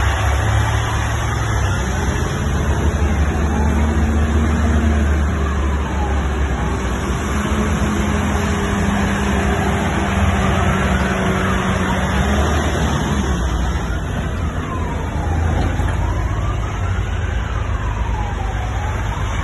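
Heavy military tank-transporter trucks driving past with their diesel engines running, while a siren wails in a slow rise and fall every few seconds.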